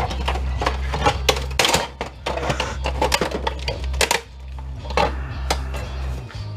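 Repeated sharp clicks, snaps and clatter as the plastic frame and metal rails of an all-in-one printer's scanner bed are pried and pulled apart by hand.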